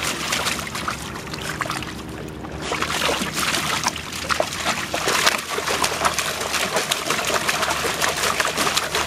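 Continuous splashing and sloshing of water in a plastic wading pool as a dog paws and bites at the end of a garden hose, with many small, quick splashes.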